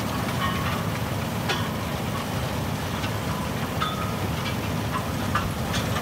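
Tractor and sugar beet harvester running in the field: a steady low rumble with occasional short, high squeaks.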